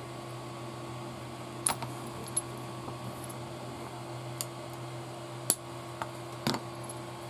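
Scattered sharp clicks and taps of long-nosed pliers and small plastic RC parts being handled as anti-roll bar links are popped onto their ball joints, about half a dozen over a few seconds, over a steady background hum.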